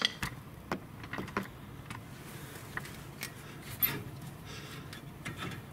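A 2013 Lincoln Navigator's brake caliper being wiggled and pulled off the rotor by hand: a series of irregular light metallic clicks and knocks.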